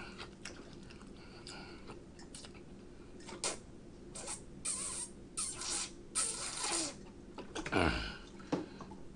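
A man drinking from the spout of a jug, heard as a string of short gulps and breaths, then a louder sound falling in pitch near the end.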